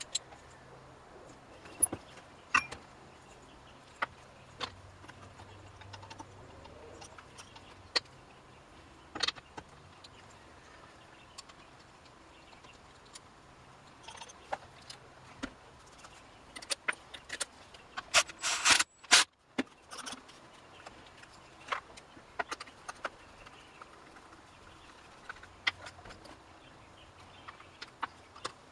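Scattered clicks, taps and light metallic clatter of small chainsaw parts and hand tools being handled, with a louder burst of rattling about two-thirds of the way through.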